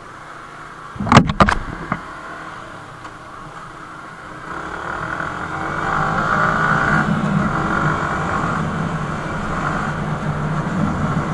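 Motorcycle engine and wind noise heard from the rider's helmet camera, fairly quiet at first and growing louder from about four seconds in as the bike rides up the flyover. A few sharp knocks come about a second in.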